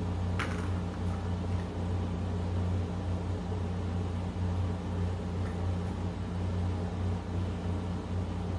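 A steady low machine hum runs at an even level throughout, with a brief click about half a second in.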